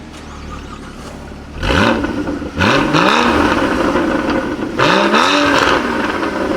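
A performance car's engine revving hard. Its pitch rises sharply three times, each time starting again from lower down, and it stays loud through the last few seconds.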